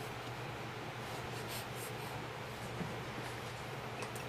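Faint scratchy rustling over steady room hiss as a baby shifts and crawls on a rug, with a small soft bump about three seconds in.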